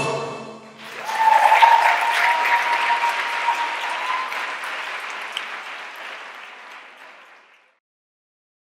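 Audience applause that swells up just after the last of the music stops, then thins and fades out about seven and a half seconds in. A long, steady tone rides over the clapping for about three seconds near the start.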